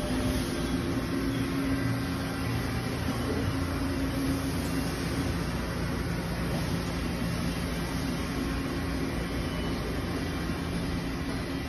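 Steady machinery hum: a low drone with a few steady tones over an even rushing noise.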